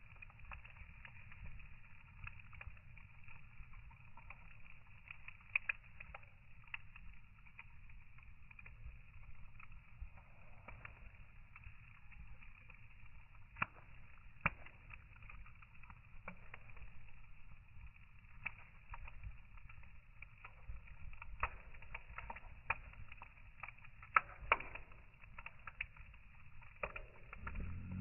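Slowed-down sound of a wood fire burning in a metal fire bowl: a low steady rumble with scattered crackles and pops, more of them in the second half.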